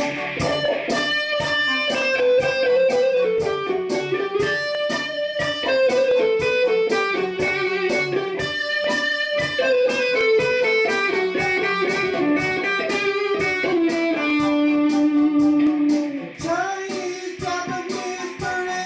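Electric guitar played through an amp over a loop: quickly picked notes with a melody line that slides between pitches.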